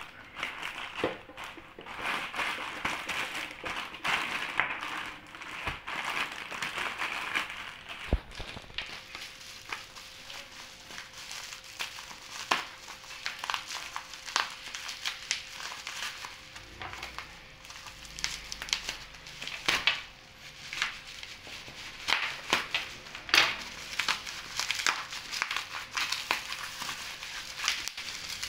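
Irregular crinkling and crackling, like a crinkly material such as plastic or paper being handled and crumpled, with many small crackles throughout.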